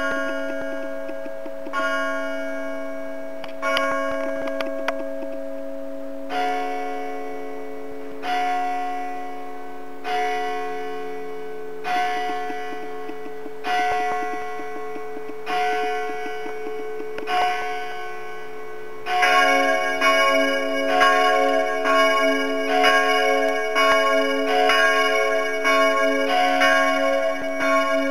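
Church bells ringing the midday peal. At first a bell strikes about every two seconds, each strike ringing on. About nineteen seconds in, more bells are sounding together and the strikes come quicker and overlap.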